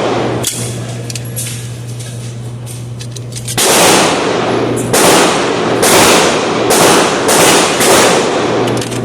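Gunfire: a rapid string of about six shots, well under a second apart, starting a few seconds in, each with a long echoing tail. Fainter, sharper shots sound earlier.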